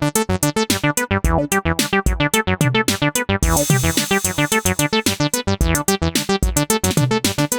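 Acid bass line sequenced on an Elektron synthesizer: a fast, even run of short pitched notes, about eight a second. A high hiss joins in about halfway through.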